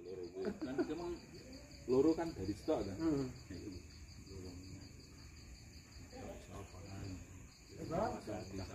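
Crickets trilling steadily in a high, fast-pulsing night chorus.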